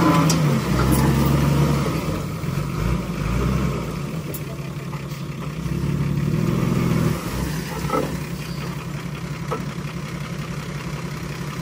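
Dump truck's diesel engine running while the bed is tipped and a load of earth and rock slides off the back. The engine speed drops just after the start, rises again around the middle, and drops back about seven seconds in.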